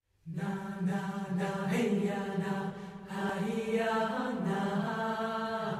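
Choir chanting a wordless joik-style melody on syllables like "na na na heyana" over a held low drone note; it comes in suddenly about a quarter of a second in.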